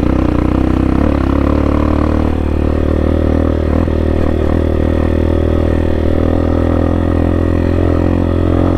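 CSC TT250 dual-sport motorcycle's single-cylinder engine running steadily under way, its pitch holding fairly even while the bike is ridden over sand.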